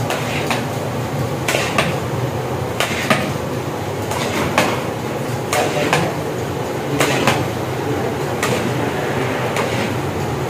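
A stirring utensil scraping and knocking against a large cooking pot as carrot halwa is mixed, with a sharp knock about once a second, some in quick pairs, over a steady low rumble.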